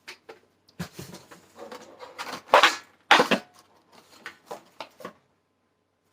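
Cardboard box and plastic blister packaging being opened and handled: irregular crinkling, rustling and clicks, with two louder crackles about two and a half and three seconds in. It stops about five seconds in.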